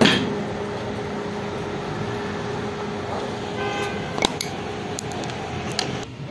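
A loud knock at the start, then a steady machine hum that cuts off near the end. A short horn-like toot comes a little over three and a half seconds in. A few sharp metal clinks follow from loose steel nuts and bolts being handled.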